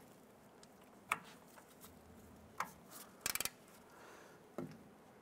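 Scattered light clicks of a hand tool working on rusty suspension hardware, with a quick run of about five ticks a little past three seconds in.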